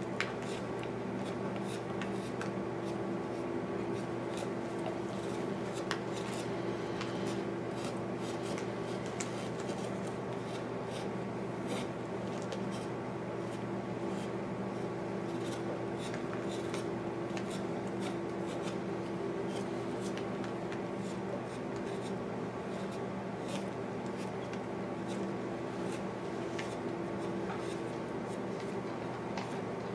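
Hand chisel paring white cedar: short, irregular scraping cuts and small ticks as chips lift from the wood, over a steady low room hum.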